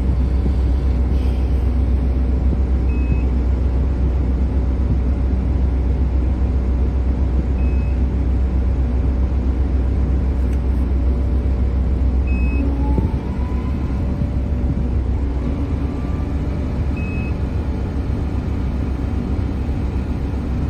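A drilling rig's engine and hydraulics run steadily with a low drone, heard from inside the operator's cab. About thirteen seconds in, a brief rising whine is heard and then the low drone drops off. A short high beep repeats about every five seconds.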